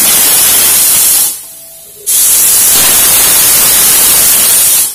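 Stovetop pressure cooker whistling: steam blasts out hissing under the weight valve, which shows the cooker is at full pressure. The first whistle cuts off about a second in, and a second one starts about two seconds in and runs nearly to the end.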